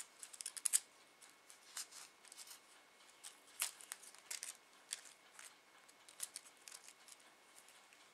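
Tissue-paper cherry blossoms and their wire stems crinkling and rustling in the hands, a faint run of short, irregular crackles with a few sharper ones near the start and around the middle.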